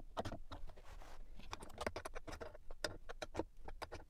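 Irregular light clicks and taps of small parts being handled and fitted inside a plastic toolbox casing, as a circuit board and a screw terminal are set in place.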